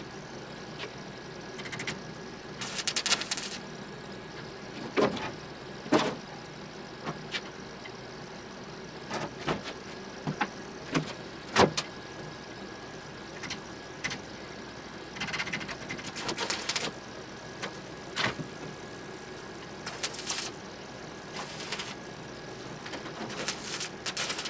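Metal workshop handling and welding on a small scrap-metal figure in a bench vise: scattered metal clinks and knocks, the loudest about twelve seconds in, and several short bursts of welding arc crackle, over a faint steady tone.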